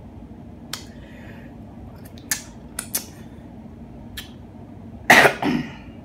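Close-miked eating sounds: scattered sharp mouth clicks and lip smacks while chewing, then one louder, half-second burst about five seconds in.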